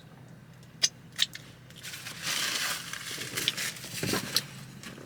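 Paper food wrapper being crinkled and crushed while a sandwich is handled, with a few sharp clicks before it and a duller knock near the end.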